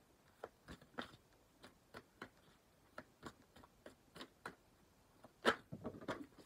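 A deck of oracle cards being shuffled by hand: irregular light clicks of the cards, with one louder click about five and a half seconds in.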